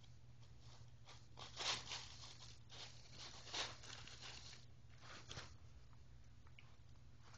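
Tissue paper rustling and crinkling as a cat paws and pushes into it, in a run of short bursts, loudest about a second and a half in and again about three and a half seconds in.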